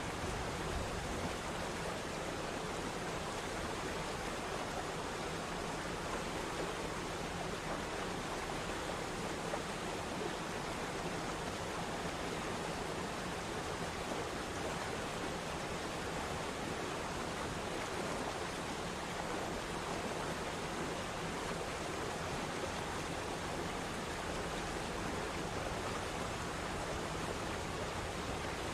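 Waterfall's steady, unbroken rush of falling water.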